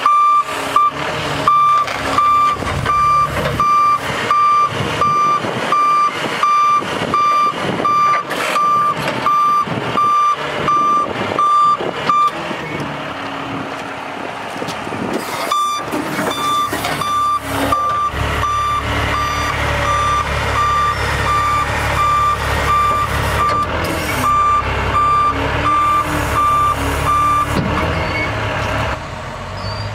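Altec digger truck's outrigger motion alarm beeping steadily, about two beeps a second, while the outriggers are worked; it stops for about three seconds partway and then resumes. Under it the truck's International MaxxForce DT diesel runs, its rumble growing heavier about two-thirds of the way through.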